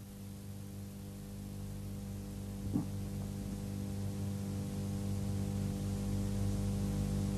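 Steady electrical mains hum, a low buzz with a stack of overtones, growing slowly louder, with one faint click about three seconds in.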